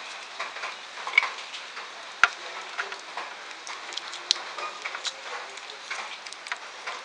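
Hand tools and small metal parts clicking and tapping while a motorcycle is being taken apart, over a steady hiss, with the sharpest click about two seconds in.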